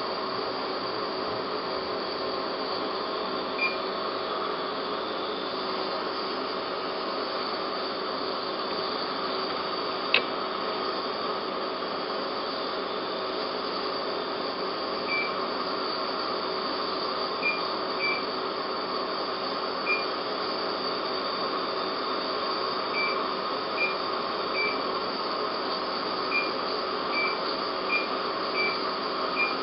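Steady hum of dental operatory equipment during crown troughing, with short high beeps that grow more frequent in the second half and one sharp click about ten seconds in.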